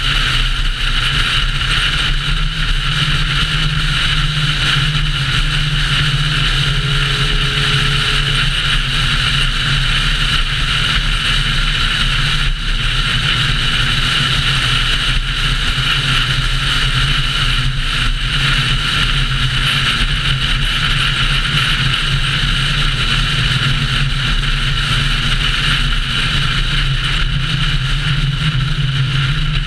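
A car cruising at a steady speed: an even drone of engine and road noise with wind rush on the camera's microphone, holding level without revving or shifting.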